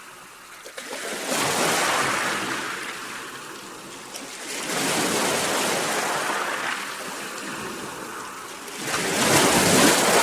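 Sea waves washing in, three swells of surf noise that rise and fade, the first about a second in, the second about halfway through, and the loudest near the end.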